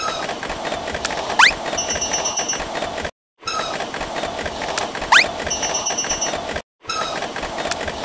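Cartoon train pass-by sound effect played three times over, with short silent gaps between. Each pass has a steady rushing rumble with fine rail clatter, a quick rising whistle about a second and a half in (the loudest moment), and a brief run of high, evenly repeated ringing dings.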